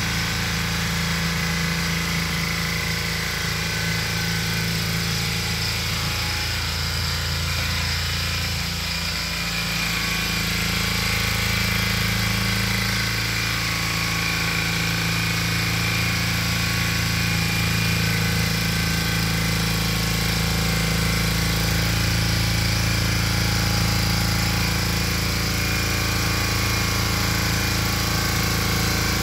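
Valpadana walk-behind tiller with its 8 hp, 359 cc Lombardini engine running steadily as it tills the soil. The engine note shifts about ten seconds in.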